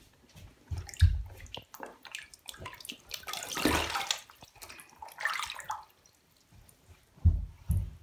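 Bathtub water sloshing and splashing as a hand pushes and turns a waterlogged paper-pulp egg carton under the surface, in several separate bursts with dull low thumps.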